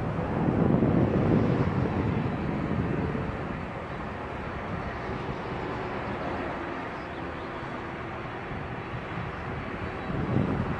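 Boeing 747-400 freighter's four turbofan engines running at taxi power as it rolls past, a steady rushing hum with a faint whine. Wind rumbles on the microphone in the first couple of seconds and again near the end.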